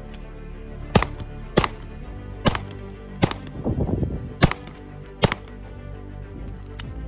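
Six pistol shots from a 9mm IWI Jericho 941 F9, fired at an uneven pace about half a second to a second apart, over background music.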